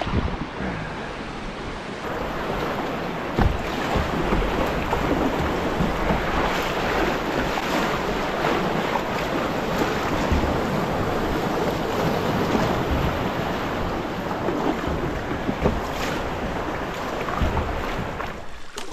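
Rushing whitewater of a high-water river rapid around a solo canoe as it runs through, with wind buffeting the microphone and a few sharp knocks.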